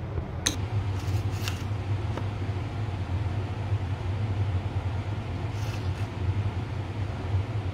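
A steady low mechanical hum, with a few light clicks of a metal spoon against the containers about half a second in, around a second and a half, and again near six seconds.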